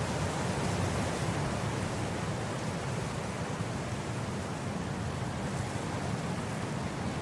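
Wind blowing steadily across grass: a continuous rushing noise with a heavy low rumble.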